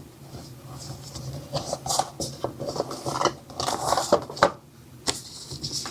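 Cardboard retail box being opened by hand and its contents pulled out: irregular rustling, scraping and light clicks of cardboard and paper packaging.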